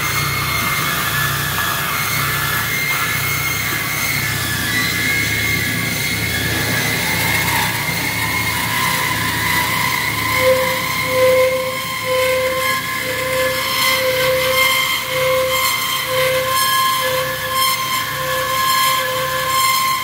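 COSEN C-520-NC automatic band saw running as it cuts steel shafting: a steady mechanical hum with a high whine. From about ten seconds in, a tone pulses about one and a half times a second.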